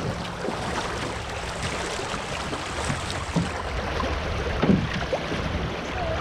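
Shallow river riffle water rushing steadily past a canoe, with wind noise on the microphone. A couple of short, dull knocks stand out, the louder one about four and three-quarter seconds in.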